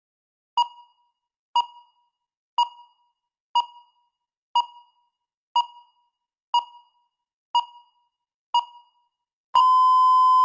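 Countdown timer beeping once a second, nine short beeps, then one longer steady beep as it reaches zero, signalling the end of the preparation time.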